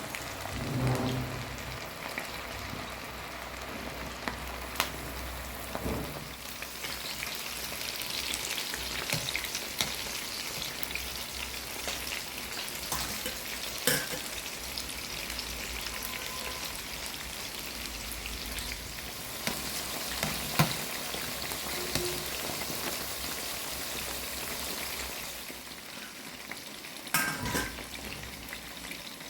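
Chicken-and-cashew pakoda batter deep-frying in hot sunflower oil: a steady crackling sizzle with a few sharp clicks and knocks, likely from a utensil against the pan.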